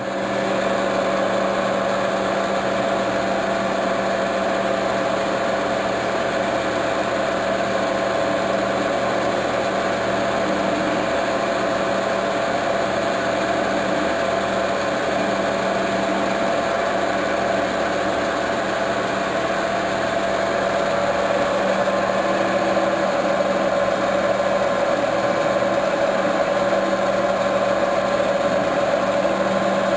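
Metal lathe running at a steady speed with a constant mechanical hum while the tool cuts a thread relief groove in the spinning workpiece.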